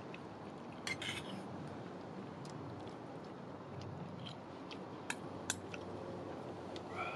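Tableware at a meal: a handful of short, sharp clicks and clinks of utensils against dishes over a steady low hiss.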